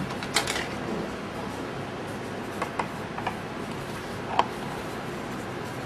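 Room tone: a steady hiss with a few faint, short clicks spread through it.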